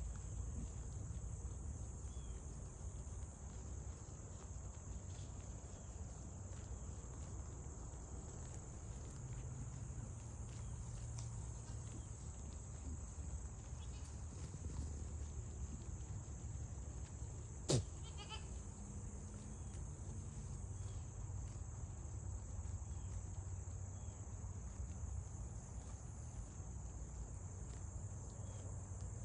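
A pygmy goat kid bleating now and then over a steady high insect chirring, with a single sharp knock about two-thirds of the way through.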